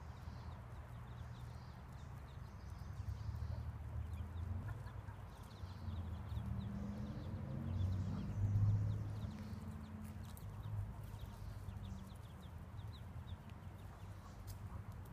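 Muscovy ducklings peeping faintly in short, scattered chirps, over a low rumble that grows louder about eight seconds in.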